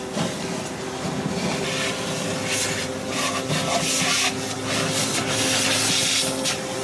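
Industrial vacuum truck sucking mud and debris out of a blocked storm drain: a steady machine hum under a continuous rushing suction noise, with irregular louder surges and scraping as sludge and debris go up the hose.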